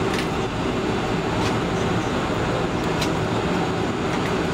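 Steady cabin rumble inside a Boeing 747-400 taxiing with its jet engines at idle, with a faint steady hum and a few light clicks.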